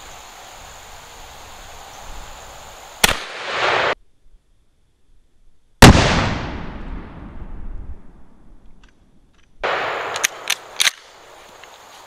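12-gauge pump-action shotgun firing a one-ounce slug. There is a sharp crack about three seconds in, then after a stretch of dead silence a louder shot about six seconds in, whose echo dies away over about two seconds. A few sharp clicks come near the end.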